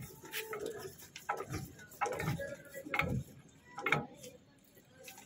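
Metal spanner ticking and clinking against a fitting under a railway coach, a series of sharp separate clicks roughly a second apart.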